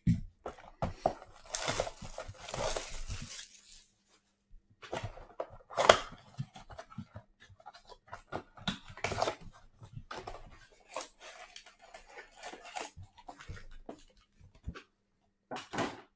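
A Mosaic Basketball mega box being torn open and handled: tearing and crinkling of its wrapping and cardboard, with scattered taps and clicks, in fits and starts.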